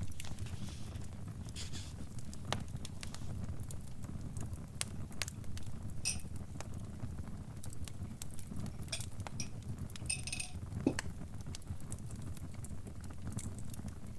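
Wood fire crackling: irregular sharp pops and snaps, with a few quick clusters of them, over a low steady rumble of burning.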